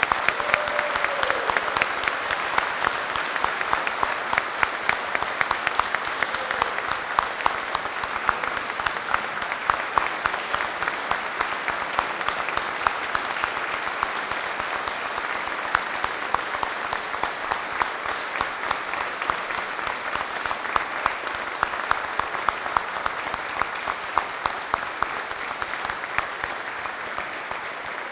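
Sustained applause from a crowd clapping by hand, dense and even, easing off slightly near the end.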